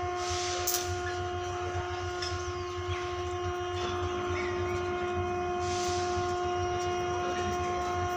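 Indian Railways electric locomotive standing with its pantograph up, giving a steady electrical hum: one pitched tone with its overtones over a low drone. Two short hisses break in, under a second in and about six seconds in.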